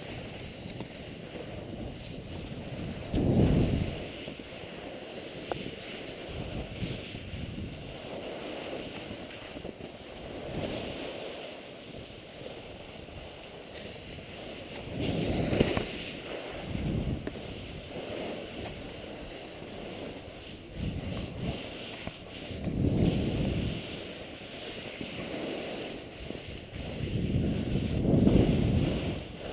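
Wind buffeting the microphone of a body-mounted camera during a fast ski descent, over a steady rushing hiss, swelling into low rumbling gusts four times.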